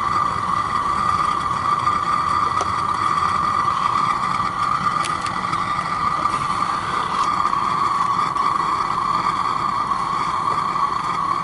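Propane burner running steadily under a saucepan, with a few faint taps of a wooden spoon against the pan as the mixture is stirred.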